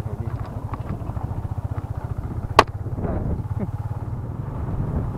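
Yamaha Exciter 150's single-cylinder four-stroke engine running at low speed with a steady low pulsing. A single sharp knock comes about halfway through.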